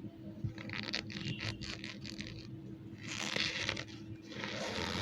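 Gym chalk mixed with cornstarch squeaking and crunching as it is pressed, in three crackly bursts: one over about two seconds, a louder one a little past halfway, and another near the end.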